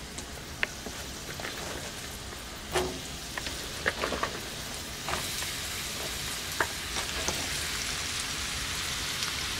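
Chopped snake gourd, Malabar spinach and Chinese red noodle beans sizzling in hot oil in a skillet as more handfuls are dropped in, with scattered small pops and clicks. The sizzle grows louder about halfway through.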